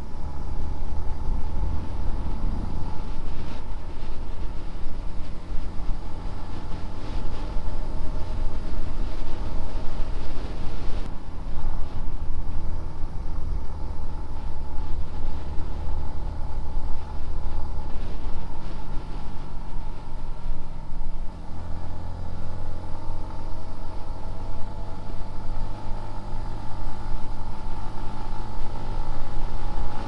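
Yamaha motorcycle engine running steadily as it is ridden along the road, its pitch climbing near the end as the bike speeds up.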